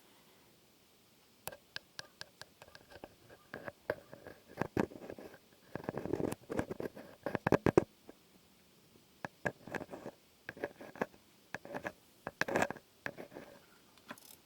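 Irregular sharp taps, clicks and scratches in quick clusters, densest and loudest in the middle, some leaving a faint ring.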